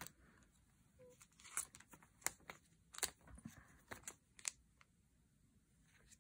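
Faint scattered clicks and light rustles of trading cards and a clear plastic card sleeve being handled, mostly between about one and four and a half seconds in.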